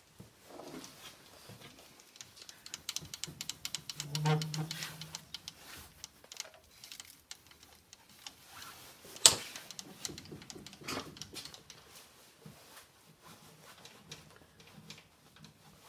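Benchtop milling machine worked by hand: irregular clicking and ticking from its levers and handwheels, busiest between about three and six seconds in, with one sharp click near the middle.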